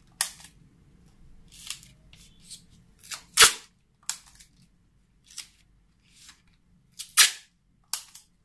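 Brown tape pulled off the roll and torn in short, sharp rips, with lighter rustles and taps as the pieces are pressed onto the screen-printing mesh; the two loudest rips come about three and a half and seven seconds in.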